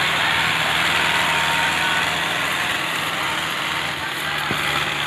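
Farm tractor engine running steadily as the tractor, just freed, drives out through deep mud.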